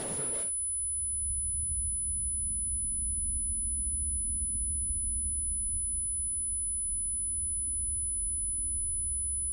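Piano music cuts off sharply about half a second in. It gives way to a steady, even low rumble with a thin, steady high-pitched tone held above it.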